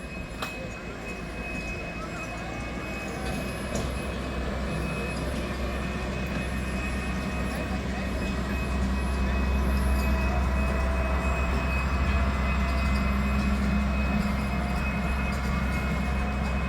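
A train running on the track, with a low steady drone that grows louder over the first ten seconds or so and then holds.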